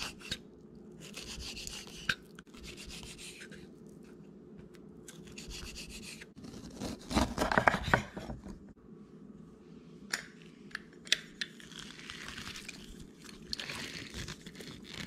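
Chef's knife cutting on a wooden cutting board: slicing raw fish into cubes, then cutting limes, with scraping strokes and a few sharp taps of the blade on the board, the loudest cutting about halfway through. Near the end a hand lime squeezer presses juice over the fish.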